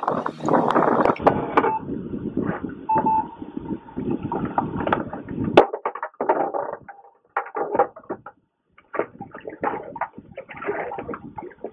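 Water splashing and the knocks and rustles of handling aboard a plastic fishing kayak as a caught northern pike is held over the side, with a sharp click about halfway through.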